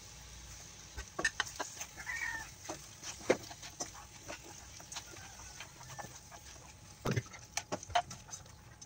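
A cooking utensil clicking and knocking against a nonstick frying pan as chicken wings are turned in simmering sauce, in two clusters of sharp taps over a faint steady hiss. A brief squeak sounds about two seconds in.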